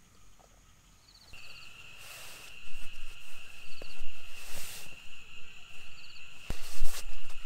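Nylon sleeping bag rustling in repeated swishes as it is stuffed into its stuff sack, with a couple of sharp clicks near the end. Behind it a steady high insect trill starts about a second in; before that only faint short insect chirps.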